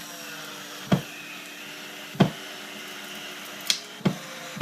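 Electric drill, the ordinary kind without impact action, running steadily while driving a screw, with no impact hammering. Five sharp clicks come through over the motor sound.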